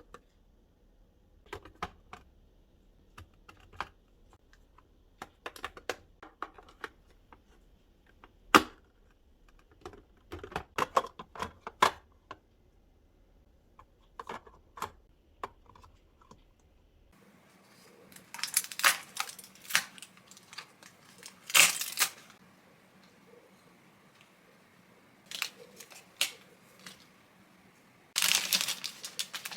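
Kitchen handling sounds: light clicks and taps of containers and items being picked up and set down, then louder bursts of plastic packaging rustling and crinkling a few times in the second half.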